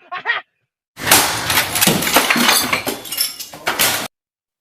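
A dense burst of clattering noise with many sharp knocks, about three seconds long, starting and stopping abruptly.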